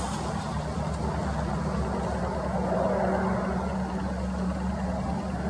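Airbus A400M's four Europrop TP400-D6 turboprop engines and propellers droning steadily as the aircraft climbs away after takeoff: a low propeller hum with a rushing sound over it.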